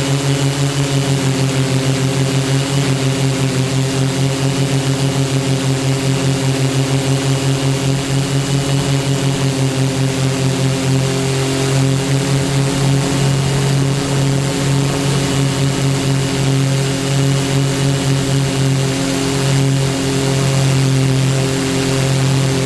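HMF U580 quadcopter's Gartt 3508 brushless motors and propellers humming steadily, heard from the camera on board. In the first half the tones beat against each other in a fast, regular throb, which smooths out about halfway through.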